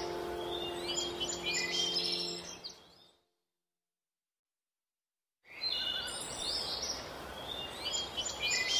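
Recorded birdsong of many quick chirps and trills over a soft, steady music drone. It fades out about three seconds in, stops completely for about two and a half seconds, then the chirping returns without the drone.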